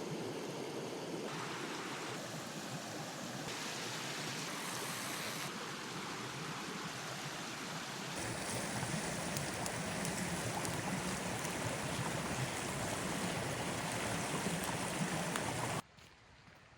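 Steady rushing-water noise whose tone changes abruptly several times, then cuts off suddenly near the end.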